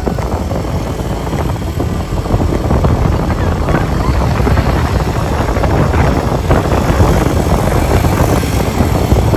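Wind buffeting the microphone of a moving ATV, loud and rumbling, with the quad's engine running underneath.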